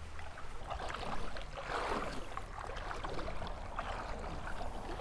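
Shallow creek water running and lapping, a steady hiss with a slight swell about two seconds in.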